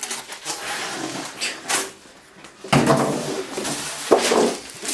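Monitor packaging being handled: rustling and scraping, with two sudden louder knocks about three and four seconds in.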